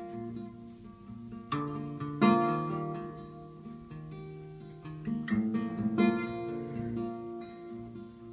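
Acoustic guitar playing the instrumental opening of an indie folk song, chords struck and left to ring and fade, the strongest strokes about two and six seconds in.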